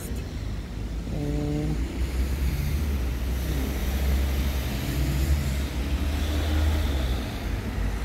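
Low, steady rumble of street traffic, with a faint hiss above it from about two seconds in. About a second in there is one short low hum.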